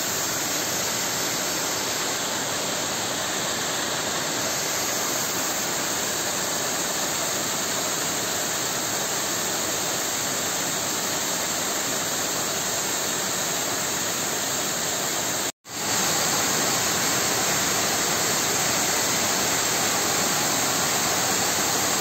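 Waterfall splashing onto rocks: a steady rush of falling water, broken off for an instant about fifteen seconds in.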